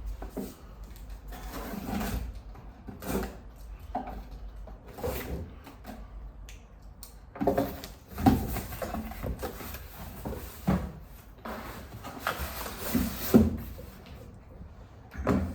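A coffee grinder's packaging being opened and unpacked by hand: irregular sliding scrapes, rustles and light knocks as the box and its contents are handled.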